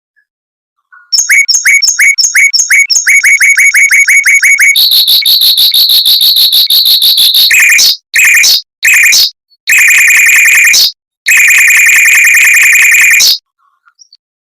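Mockingbird singing in fast, tightly repeated phrases. First comes a series of quick two-pitched chips at about seven a second, then a long rapid trill. After that come several dense, buzzy trilled bursts separated by short gaps.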